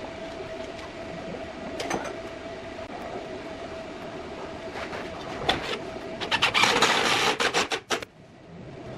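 Electric hand drill running steadily, with scattered clicks and knocks. From about six seconds in, a louder harsh grinding rises as the bit works into metal, and it cuts off suddenly near the end.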